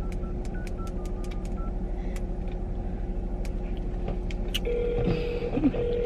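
Fingernails tapping a phone's touchscreen with short keypad beeps at slightly different pitches, then a steady call ringing tone on the phone's speaker from about five seconds in, over the steady hum of a car's idling engine.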